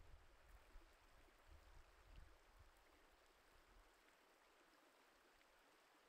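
Near silence: faint steady outdoor hiss, with a soft low rumble in the first couple of seconds that dies away.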